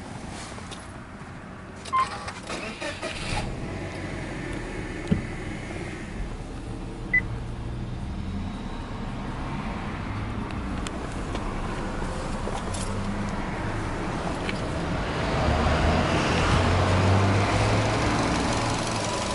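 Subaru Legacy B4 2.0GT's EJ20 turbocharged flat-four being started: a few clicks and a brief crank about two seconds in, then it settles into a steady idle. The idle gets louder about three-quarters of the way through, heard from outside the car by the open door.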